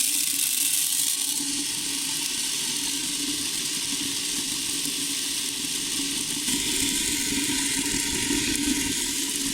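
Star-rolling machine turning a batch of crackle core stars: a steady hiss of small pellets tumbling in the rotating bucket over a low, even motor hum.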